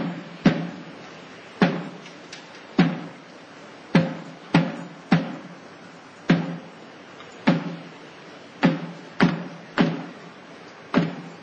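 Cathedral bells ringing: a slow, uneven run of single strokes, roughly one a second with some in quick pairs, each ringing on briefly after the strike.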